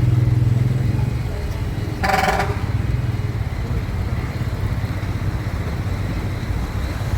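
Motor vehicle engine running steadily, with one short high tone about two seconds in.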